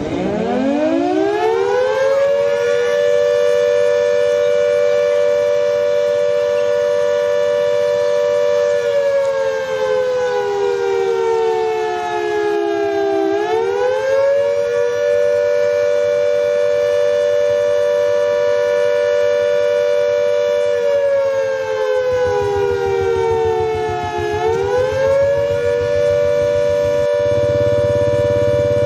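Two-tone warning siren winding up over about two seconds to a steady wail, then twice sagging slowly in pitch for a few seconds and winding quickly back up.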